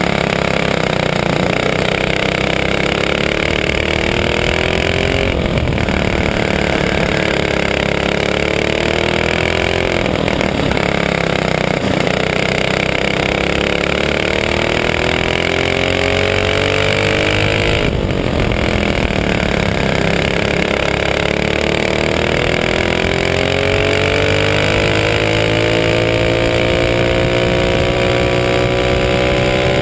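Briggs & Stratton Animal four-stroke single-cylinder kart engine at racing pace, recorded onboard: its pitch climbs steadily along each straight, then drops sharply as the driver lifts for a corner, about four times, with the longest climb over the last ten seconds.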